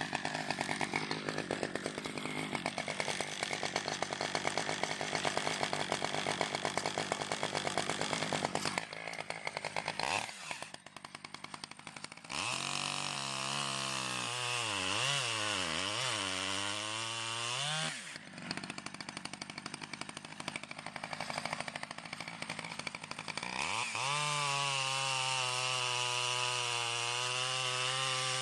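Stihl 011 AVT two-stroke chainsaw running: a rough, rapid idle, then the engine is revved up and down several times and, near the end, held at a steady high speed. The saw is still tuned a bit rich.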